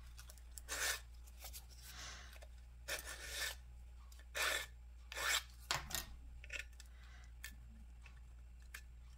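Wooden craft stick scraped and rubbed along the edge of a small wooden birdhouse to tear away overhanging decoupage napkin: a series of short, irregular, quiet scraping strokes.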